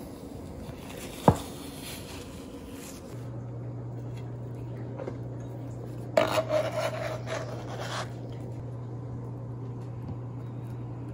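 A spatula scraping in a glass baking dish and setting a slice of cake down on a plate, with a single sharp click about a second in and a noisier stretch of scraping and handling midway through. A low steady hum starts about three seconds in.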